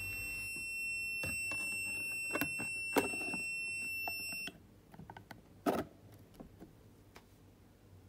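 The smart fridge's alarm buzzer sounds a steady high beep-tone, the warning that the door has been open for more than 30 seconds. It cuts off suddenly about four and a half seconds in, when the door is put back. A few light knocks from handling the door come around it, the loudest shortly after the tone stops.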